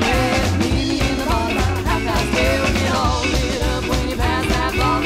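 Upbeat background music with a steady beat and melodic lead lines.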